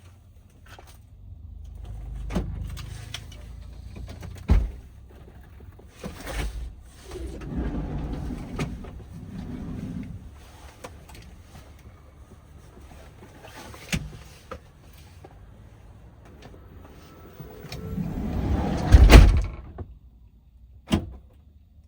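Knocks and low rumbles around a van, with the loudest thud about nineteen seconds in, after a rising rumble.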